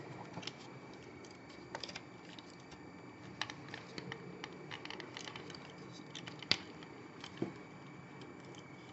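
Plastic parts of a large Transformers robot figure clicking and knocking quietly as its leg panels are folded and its feet rotated by hand: a handful of separate clicks, the sharpest about two-thirds of the way in.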